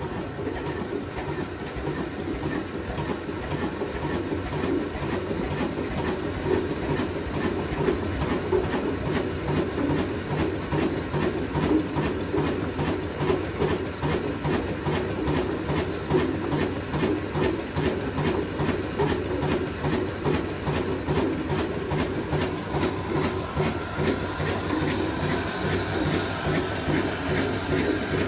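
Old horizontal single-cylinder stationary diesel engine with a large flywheel, running steadily with an even, repeating knock, driving a belt to a water-pump pulley.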